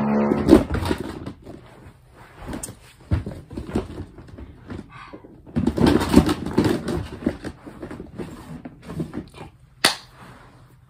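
Rummaging through a plastic storage drawer: irregular clattering and knocking of plastic fidget toys being moved and lifted out, busiest about halfway through, with one sharp click near the end.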